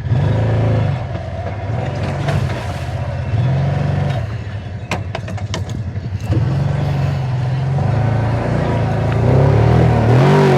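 Kawasaki Teryx side-by-side's V-twin engine pulling a heavy load of corn over rough ground. It revs up and eases off several times, with a few sharp knocks about halfway through.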